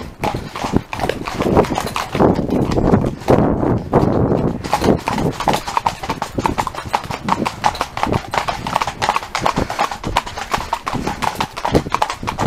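Hoofbeats of a ridden horse moving at a brisk pace: a rapid, even run of hoof strikes.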